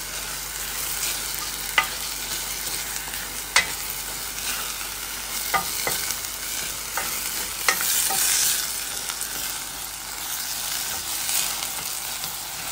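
Diced beef and vegetables sizzling in a stainless steel pot, a steady frying hiss, while a plastic spoon stirs them, with a few sharp clicks and scrapes of the spoon against the pot.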